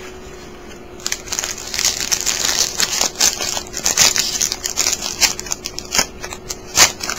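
Foil wrapper of a trading-card pack being torn open and crinkled by hand. It starts about a second in and goes on as a dense run of crackles and rustles with sharp snaps.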